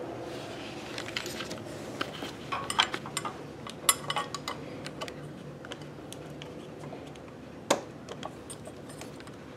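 Light metallic clicks and clinks from hands handling the metal pulley on an industrial sewing machine's electric motor, with one sharper knock about three-quarters of the way through.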